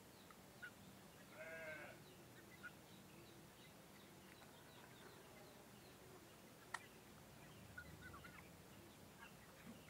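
Quiet farmyard between rooster crows: about a second and a half in, one short pitched animal call, with faint scattered chirps and a single sharp tick near seven seconds.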